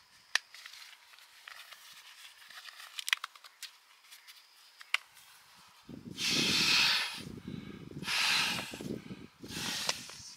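Scattered light clicks and ticks, then three rustling, scraping noises of about a second each, starting about six seconds in.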